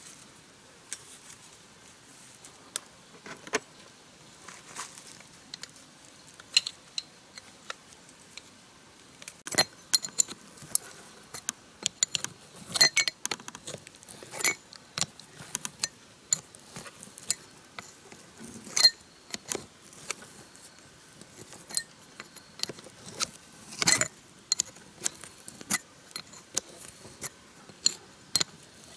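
Open-end steel wrench clinking against the bolts and cast body of a car-wash pressure pump's three-port head as the bolts are worked: irregular sharp metal clicks and clinks, a few of them much louder.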